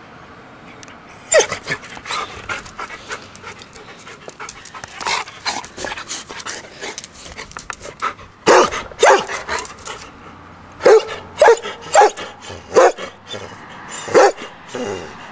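Golden retriever panting rapidly, then giving a run of short, loud barks from about halfway through.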